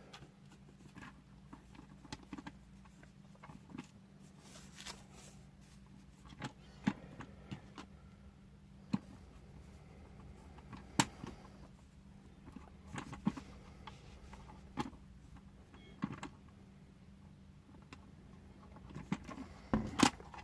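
Small plastic toy parts clicking and tapping now and then as they are handled and pressed into place, over a faint steady hum.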